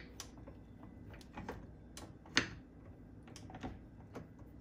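A spatula scraping and tapping against a stainless steel mixing bowl while dough is worked in it: scattered light clicks and scrapes at an irregular pace, with one louder knock about two and a half seconds in.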